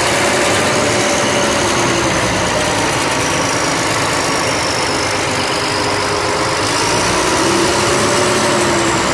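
Sand dredge's diesel engine running steadily at high throttle, driving the pump while it moves only water, not yet loaded with sand.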